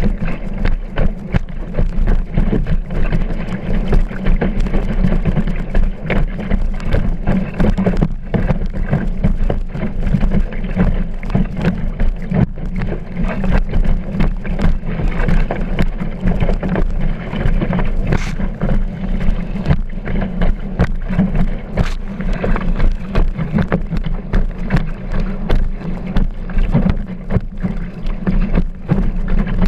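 Kiteboard planing across choppy water: water rushing and spraying past, and the board slapping over the chop in frequent short knocks, under a heavy low rumble of wind buffeting the board-mounted camera's microphone.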